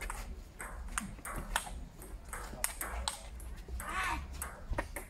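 Table tennis rally on an outdoor concrete table: the celluloid ball clicks sharply off paddles and the tabletop at an uneven pace.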